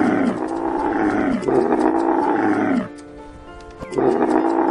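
A camel bellowing in long, deep, groaning calls: three in a row, then a short pause and another, over light background music.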